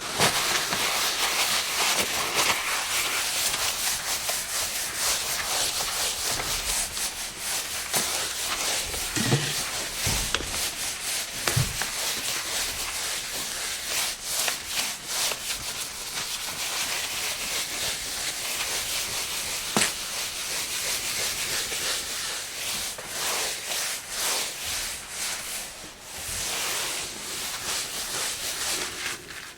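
A countertop being wiped: a continuous rubbing hiss made of many short strokes. A few light knocks come about nine to twelve seconds in, and one more about twenty seconds in.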